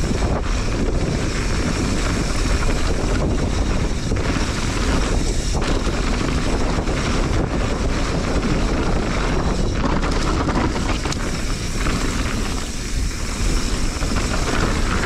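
Wind noise on the microphone over a mountain bike rolling downhill on a rocky dirt singletrack, the tyres rolling over loose gravel with scattered clicks and rattles from the bike.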